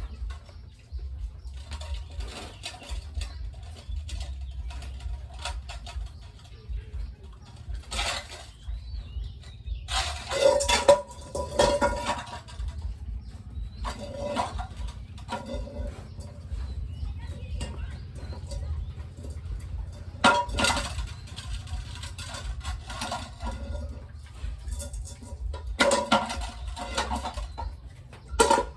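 Chickens clucking and squawking in irregular bursts, with some clattering, over a steady low hum.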